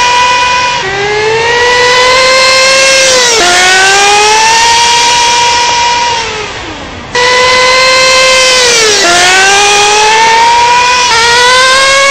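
RC on-road model car driven at speed: its motor's high-pitched note climbs as it accelerates, then drops sharply three times as it slows. The note fades out briefly about six seconds in and cuts back in suddenly.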